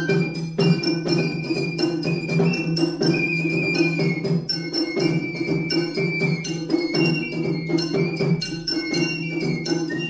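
Matsuri-bayashi festival music: a shinobue bamboo flute plays a high melody in held notes over quick, steady strokes of taiko drums.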